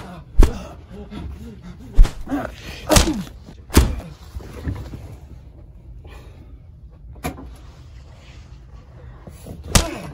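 Fight sound effects: sharp punch and body-hit impacts, four in quick succession over the first four seconds and two more spaced out later, some followed by short grunts.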